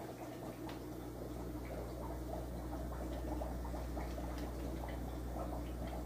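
Aquarium air stones bubbling, a steady crackle of small pops and ticks, over a steady low hum.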